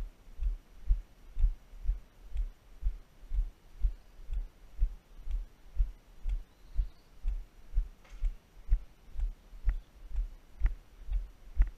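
Steady walking footfalls, heard as low thuds about twice a second, some with a light click on top, as the stride jolts a body-worn camera.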